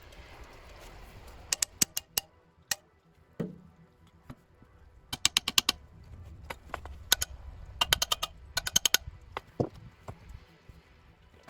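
Sharp hard clicks and taps, a few scattered and then in quick runs of several strikes each.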